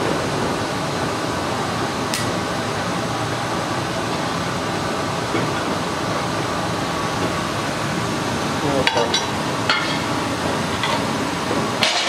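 A red-hot steel bar being twisted in a vise with a wrench. A few sharp metallic clinks of the tools on steel come once about two seconds in and several times near the end, over a steady rushing noise from the forge.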